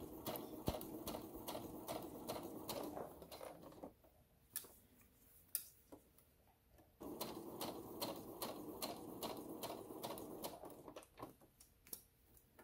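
Electric home sewing machine stitching a seam in bursts: a run of rapid, even needle strokes for about four seconds, a pause of about three seconds with a couple of single clicks, then a second run of about four seconds, followed by a few scattered clicks. The machine stops at each pin so it can be pulled out before stitching on.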